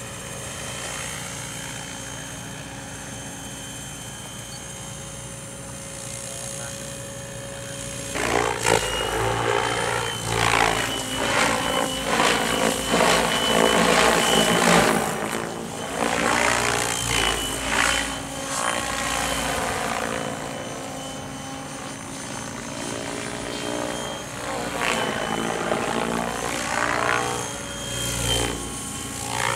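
Logo 600SE electric radio-controlled helicopter in flight, its rotor and motor making a whirring hum with a steady high whine. The hum is fainter and even for the first eight seconds, then louder, sweeping up and down in pitch again and again as the helicopter manoeuvres.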